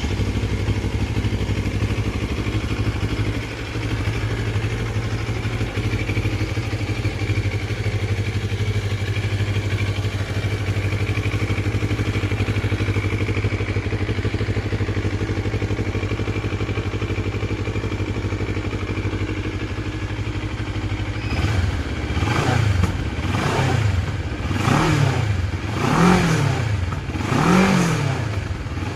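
CFMOTO 650MT's parallel-twin engine through its stock exhaust, idling steadily, then revved several times in quick throttle blips over the last eight seconds or so, each rising and falling back.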